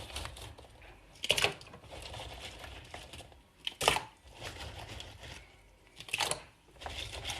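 Pine cones being washed by hand in a basin of water: cones rustling and knocking together, with three louder bursts about two and a half seconds apart.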